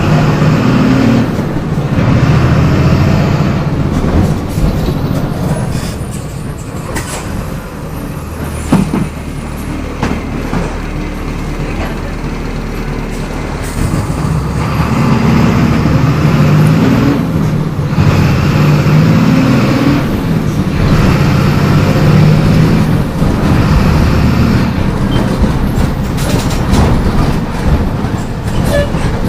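MWM 6.12 TCAE six-cylinder turbodiesel of a Volksbus 17.210 EOD bus pulling under load. The engine note repeatedly rises, then drops away briefly before climbing again.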